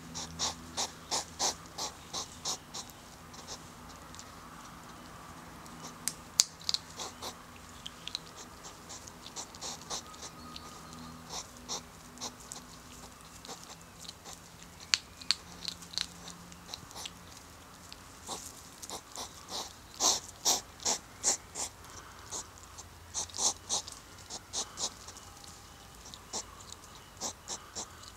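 European hedgehogs huffing and snorting in rhythmic runs of about three or four puffs a second, in several bouts: the courtship huffing of a male circling a female.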